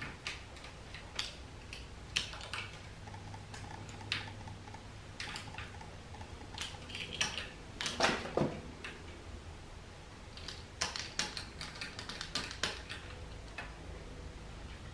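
Irregular small clicks and taps as a spline tool and fingers press rubber spline into the aluminium channel of a screen door frame, with a few louder knocks about halfway through.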